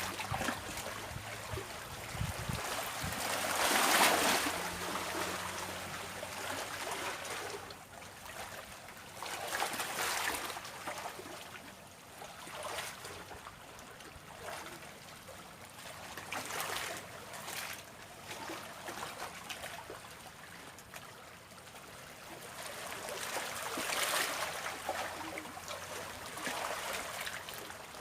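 Small sea waves washing and splashing against the shore, swelling about every six or seven seconds.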